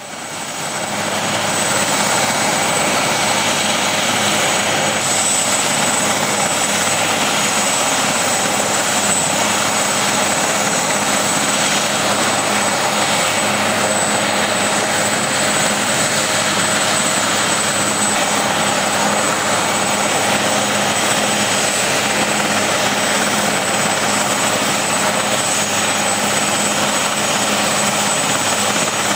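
RAF Puma helicopter running on the ground at idle, its twin turboshaft engines and turning rotor making a steady, loud rush of noise with a constant high turbine whine. The sound fades in over the first two seconds and then holds steady.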